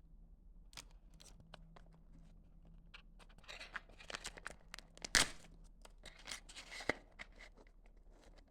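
Cigarette pack packaging being handled and torn open: crinkling and tearing with scattered small clicks, and a sharp snap about five seconds in and a lighter one a couple of seconds later.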